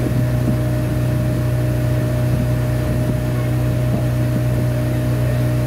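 Motorboat engine running at a steady low drone while the boat is underway.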